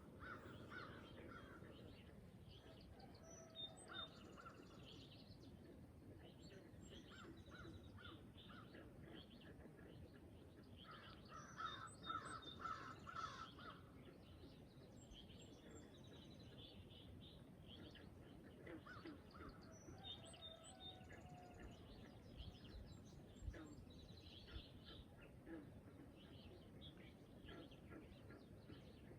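Faint morning chorus of birds calling and chirping over a low background hiss, with a louder cluster of calls about twelve seconds in.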